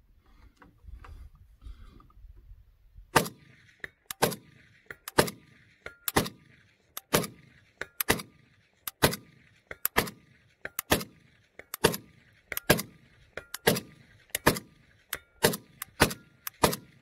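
Bulgarian AK74 rifle in 5.45×39 firing single shots at a steady pace of about one a second, some fifteen in all, starting about three seconds in. A faint short ringing tone follows several of the shots.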